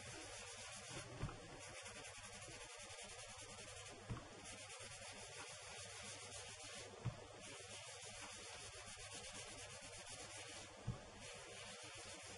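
Foam sponge rubbed in small circles over embossed cardstock, laying down ink: a faint, steady scratchy rubbing, with a few brief knocks about three seconds apart.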